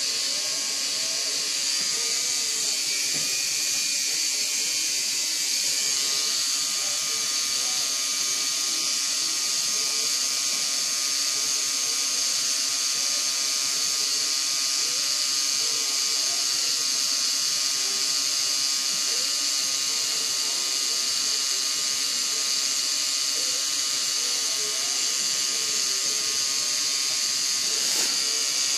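Permanent-makeup pen machine running with a steady, high-pitched electric buzz as its needle works hair strokes into an eyebrow.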